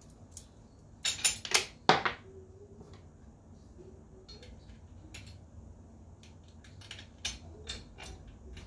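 Metal hardware clinking as nuts, washers and bolts are handled and fitted by hand to a steel rotisserie bracket: a quick run of loud clinks about a second in, then light scattered clicks.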